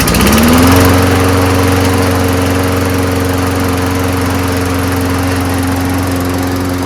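Briggs & Stratton Quantum single-cylinder mower engine catching right after a pull start. Its pitch climbs for about the first second, then it runs steadily at speed.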